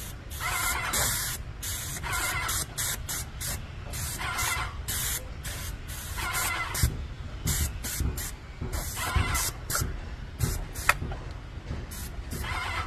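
Airless paint spray gun of a Stone Hammer X2000 electric airless sprayer hissing in many short, sharp bursts as the trigger is pulled and released, spraying water-based wall primer close to the wall. A steady low rumble runs underneath.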